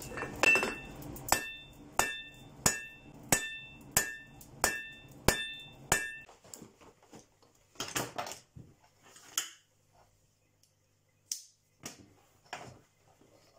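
Hand hammer forging hot metal on a steel anvil: about nine evenly spaced blows, roughly one and a half a second, each with a bright ring. After about six seconds the blows stop and a few scattered softer knocks follow.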